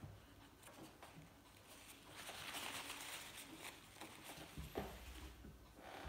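Faint handling sounds of a small gas lighter part being cleaned with a paper towel: light clicks and paper rustling. About two seconds in there is a soft hiss lasting over a second, and near the end a low thump.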